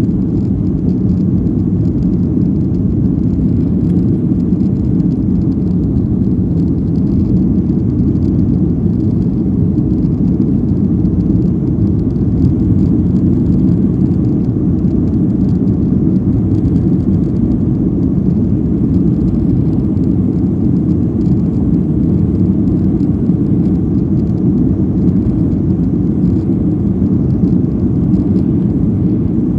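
Steady low rumble of engine and airflow noise inside the cabin of a Boeing 737-800 climbing after takeoff, its CFM56-7B turbofans at climb power.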